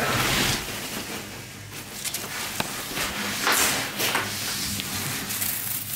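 Clear plastic film around a heavy glass tabletop rustling and crinkling in bursts as the wrapped panel is lifted and handled out of its cardboard box, with one light tick about two and a half seconds in.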